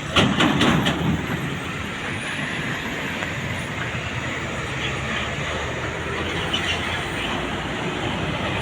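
A large bus passing along a road, a steady rumble of engine and tyre noise, after a few sharp loud strokes in the first second.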